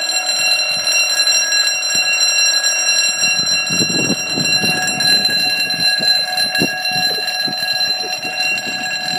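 Level crossing alarm sounder on the barrier post, giving a loud, steady electronic warning tone that signals an approaching train with the barriers down. Low irregular rumbles come in from about three and a half seconds in.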